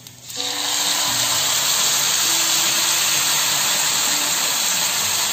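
Tomato sauce hitting a hot frying pan of fried chicken and coconut oil, sizzling. The sizzle starts sharply about a third of a second in, then holds loud and steady.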